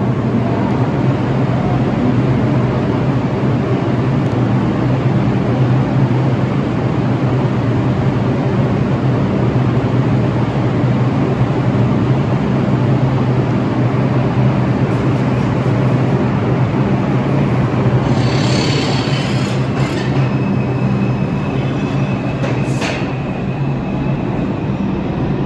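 New York City R142-family subway train running at speed: a steady rumble with a motor hum under it. A thin, high squeal from the wheels or brakes comes in for a few seconds near the end.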